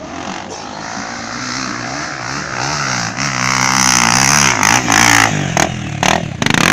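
Off-road trail motorcycle engine running under load, its pitch rising and falling with the throttle and getting louder, with a rushing noise building over it. Several sharp knocks come in the last couple of seconds.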